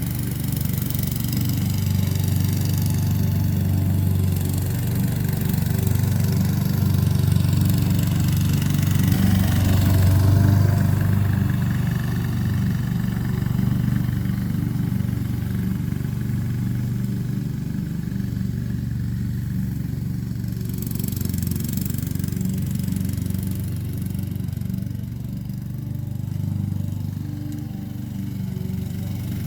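Honda HRX217 walk-behind mower's engine running steadily while mowing, swelling slightly about ten seconds in.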